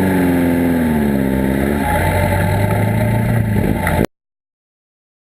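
Sandrail buggy engine running, its pitch swelling up and back down over the first two seconds, then holding a steady drone; the sound cuts off suddenly about four seconds in.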